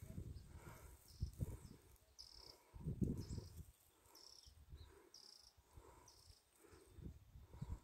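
Footsteps and rustling of someone walking through grass and scrub, heard as soft irregular thuds. Over them, a short high chirp repeats about once a second.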